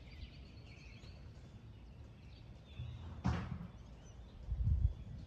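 Birds chirping and trilling in the background over a low rumble of wind on the microphone, with a single sharp thud about three seconds in and a brief low rumble near the end.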